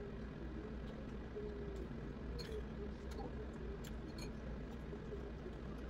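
Quiet room tone: a steady low hum and hiss with a few faint clicks.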